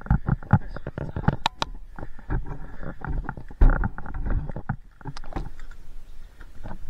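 Irregular muffled thumps, crunches and scuffs of someone trudging up a hill through deep snow while hauling a loaded toboggan, heard through a waterproof camera housing that blocks the microphone and dulls the sound. The thumping thins out about five seconds in.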